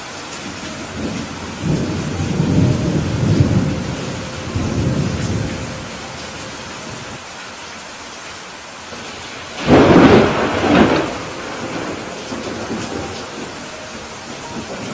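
Heavy rain falling steadily, with a rolling rumble of thunder that swells about a second in and fades over several seconds, then a sudden, loud crack of thunder about two thirds of the way through that dies away within a couple of seconds.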